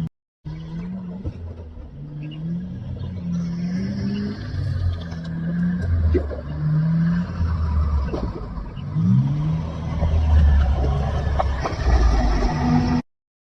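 Motor engine running and revving, its pitch repeatedly rising and falling in short steps. The sound cuts out abruptly just after the start and again near the end.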